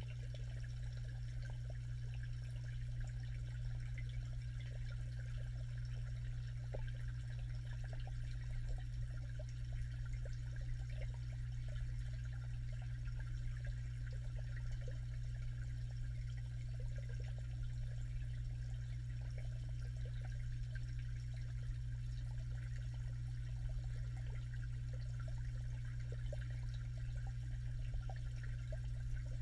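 Underwater ambience picked up by a camera submerged in a cichlid pond: a steady low hum under faint watery hiss and small crackles.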